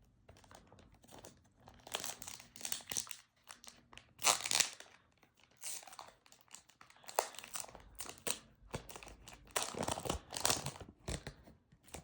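Trading card pack wrapper being torn open and crinkled by hand, in irregular crackles with louder bursts about four seconds in and again near the end.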